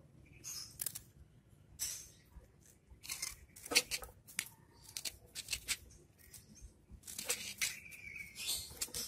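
Short, irregular scratching and rustling as a kitten's claws and paws swipe at a rough surface and dry straw. A brief high chirp sounds near the end.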